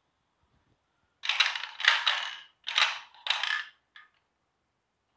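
Hard plastic pieces of a ball-and-stick molecular model kit clattering as they are handled. There are four short rattling bursts starting about a second in, then a small click.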